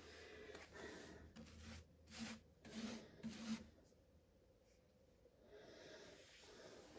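Faint swishing rubs of a paintbrush laying varnish over the gem-covered surface of a diamond painting, several soft strokes in the first three and a half seconds, then near silence.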